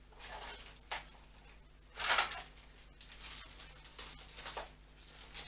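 Short rustling and scraping handling noises, about five separate ones, the loudest and longest about two seconds in, over a low steady hum.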